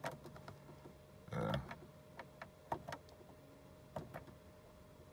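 Several faint clicks from the Ford Crown Victoria instrument cluster's push button as it is pressed to step through the self-test display readings, with one short, louder noise about a second and a half in.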